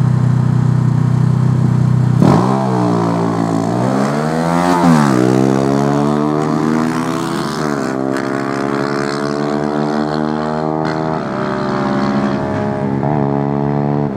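Drag-racing motorcycles holding a steady engine note at the start line, then launching hard about two seconds in. The engine pitch climbs and drops back several times as they shift up through the gears down the strip.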